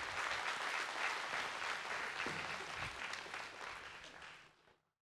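Congregation applauding, fading away near the end.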